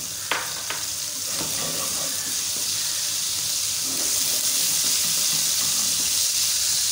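Ginger-garlic paste sizzling in hot oil in a wok while a silicone spatula stirs it, with two light taps of the spatula on the pan near the start. The sizzle grows a little louder about four seconds in.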